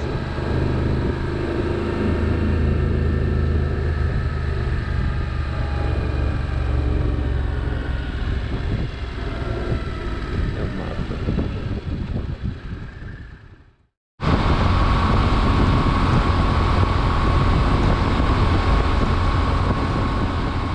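Motorcycle engine running on the road, with wind noise on the microphone. The sound fades out about two-thirds of the way through, then cuts straight back in after a moment of silence.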